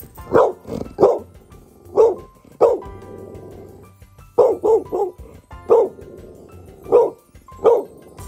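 A dog barking: about eleven short, sharp barks, some coming in quick runs of two or three.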